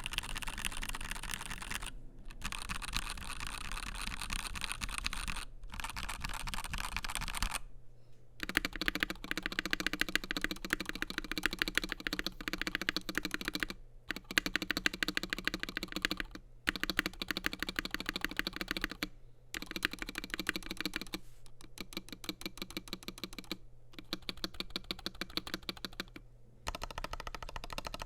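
Fast typing on a FiiO KB3 mechanical keyboard with Gateron G Pro 3.0 Yellow linear switches, a stainless steel plate and translucent PC keycaps: a dense run of key clicks. The typing comes in several stretches broken by brief silent gaps.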